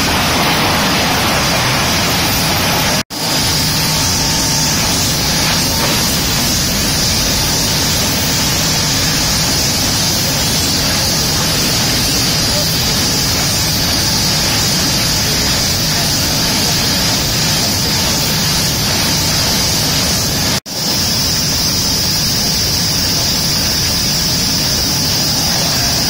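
Sawmill lumber-handling machinery running: a steady, loud industrial din with a constant high hiss over it, from chain transfer decks and roller conveyors moving boards. The sound cuts out for an instant twice, about three seconds in and again about twenty-one seconds in.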